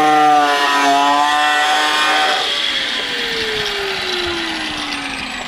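Electric angle grinder running at speed, then switched off about two and a half seconds in and spinning down, its motor whine falling steadily in pitch.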